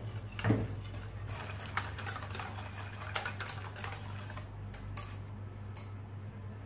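Wire whisk rattling and clicking against the sides of a stainless steel saucepan as a milk and egg-yolk mixture for pastry cream is whisked, in quick irregular taps, with one louder knock about half a second in.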